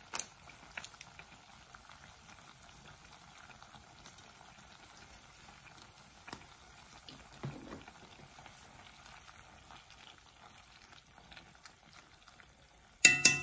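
Pot of pork chitterlings bubbling faintly on the stove, a soft steady simmer with scattered small pops. Near the end, one sharp clink with a brief ring.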